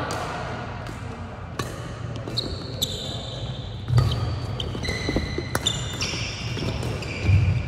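Badminton rally: several sharp racket hits on the shuttlecock, sneakers squeaking in short high-pitched chirps on the court floor, and low thuds of footsteps, the loudest about four seconds in and near the end.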